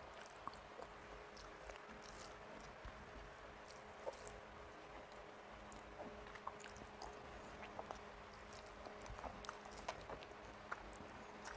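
Close-miked chewing and mouth sounds of a person eating rice and curry by hand, with scattered small wet clicks as fingers mix rice on the plate, over a faint steady hum.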